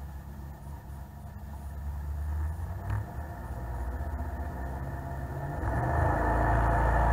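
Jet boat's engine running under way, a steady low hum with water rush. It builds gradually, with one brief sharp knock about three seconds in, and gets clearly louder with more rushing noise about six seconds in.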